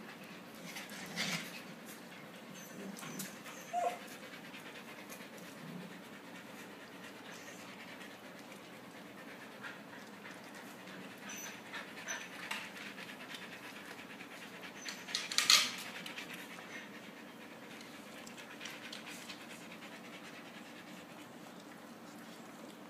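Husky puppies and an adult husky playing together, with steady dog panting and a few short sharp noises, the loudest about fifteen seconds in.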